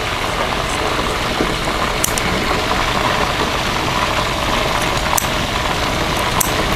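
Chicken thighs deep-frying in a wok of hot oil: a loud, steady sizzle with a few sharp ticks.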